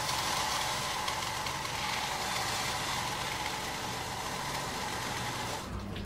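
Precision saw running steadily as it cuts millimetre-thin slices from a frozen, polyurethane-embedded body. The noise cuts off suddenly near the end.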